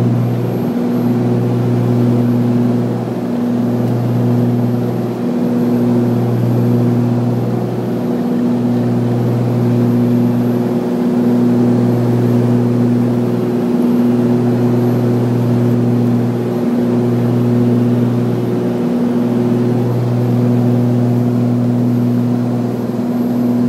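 Cabin drone of a Cessna 414A Chancellor's twin turbocharged piston engines and propellers in cruise descent, a steady hum that pulses slowly every two to three seconds, the beat of the two propellers turning at slightly different speeds.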